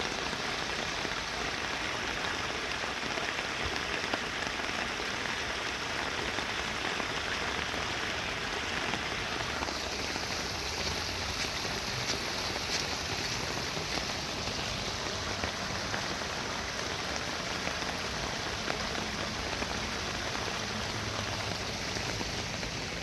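Steady rain falling: an even hiss with scattered drop ticks, getting a little brighter about ten seconds in.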